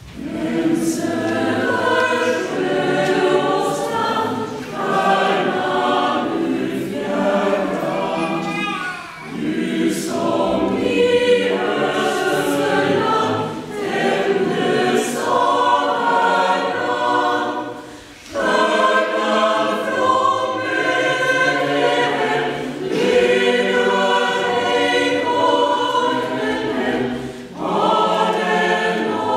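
Mixed choir singing a sacred Christmas piece, beginning right at the start and going on in phrases with brief pauses between them, the longest about eighteen seconds in.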